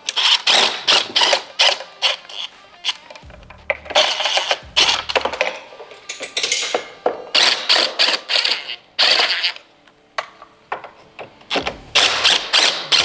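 Hand ratchet clicking in repeated bursts as the screws holding a motorcycle radio are backed out.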